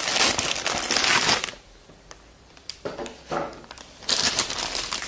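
A metallized anti-static bag crinkling and rustling as hands crumple it and work a graphics card out of it. The crinkling stops for about a second and a half in the middle and starts again near the end.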